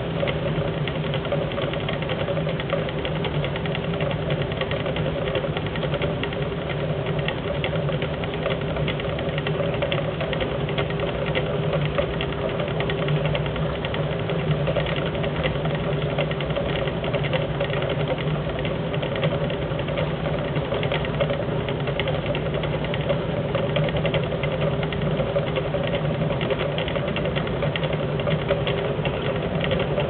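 1971 Simpson Fully Programmed Fluid Drive washing machine in its spin cycle, the basket spinning at full speed: a steady motor and drive hum with a fast, even rattle over it.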